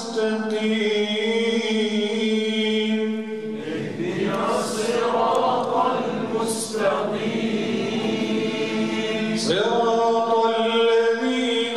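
A man reciting the Quran in the melodic, drawn-out style through a microphone, holding long sung notes. The held notes are clearest in the first few seconds and again near the end, with a less clearly pitched stretch between them.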